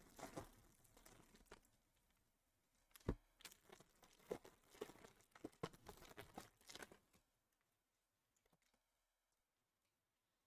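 A foil trading-card pack wrapper being torn open and crinkled, and the cards slid out of it: faint, scattered rustles and clicks, the sharpest about three seconds in. The sounds fall quiet for the last few seconds.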